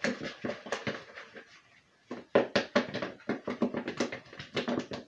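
Chicken wings being tossed in sauce inside a lidded container: a run of quick, irregular thumps, a short pause about one and a half seconds in, then faster, louder shaking.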